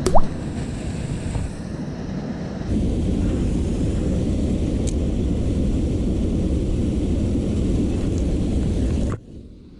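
Steady rumbling wind noise on the microphone mixed with the rush of river water, which grows louder about three seconds in and cuts off sharply near the end. A single short, loud knock comes right at the start.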